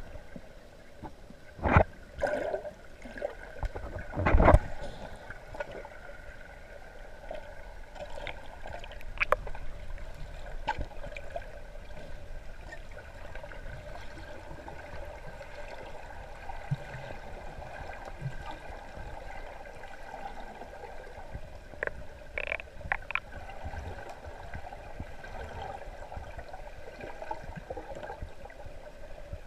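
Swimming pool heard from underwater: a steady, muffled hum and wash of water, with a few loud thumps in the first five seconds and scattered sharp clicks, a cluster of them about two-thirds of the way in.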